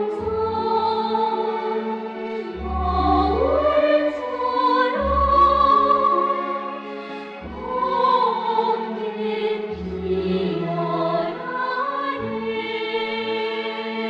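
Orchestral music with voices singing long held, gliding lines over sustained bass notes, in an operatic choral style.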